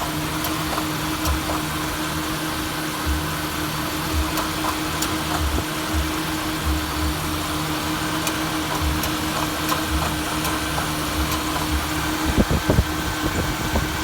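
2000 Honda CR-V's 2.0-litre four-cylinder engine idling, with an intermittent clicking from the front of the engine that comes and goes at irregular intervals. The owner says it sounds like a starter and does not know its cause. A few low thumps come near the end.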